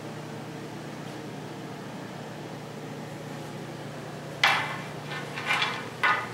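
Steady low hum, then a sharp knock about four seconds in, a short rattling scrape and another knock near the end: a red elm hunting bow being set down on a ceramic tile floor.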